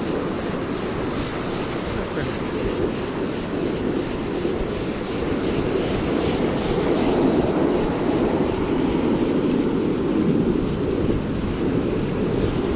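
Wind buffeting the microphone over the rush of surf, swelling louder for several seconds midway.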